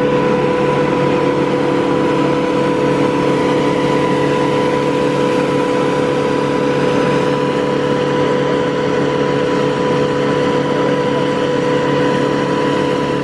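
Engine of a tree-removal crane running steadily at an even speed: a loud, constant hum with several held tones.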